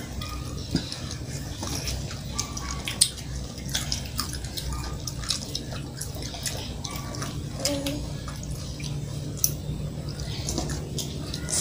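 Children chewing and crunching raw cucumber slices, with scattered wet clicks and smacks as the watery slices are picked out of the bowl and eaten. A steady low hum runs underneath.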